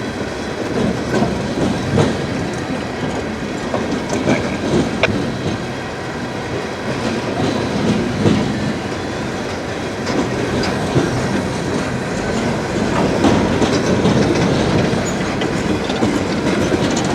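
CSX train's cars rolling past, a steady rumble with scattered clicks of wheels over the rail.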